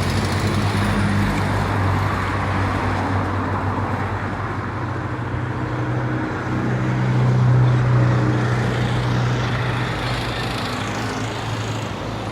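Wind buffeting the microphone over road traffic; a vehicle's engine drone grows louder just past the middle, then fades.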